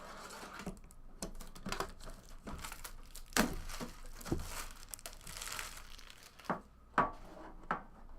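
Trading-card pack wrapper being crinkled and torn open, with sharp clicks and snaps as the cards and packaging are handled.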